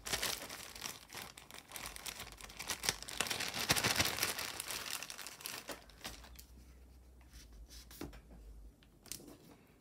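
Hands rummaging through a lot of costume jewelry: dense crinkling and rustling with small metallic clicks, loudest about four seconds in, then thinning to a few scattered clicks.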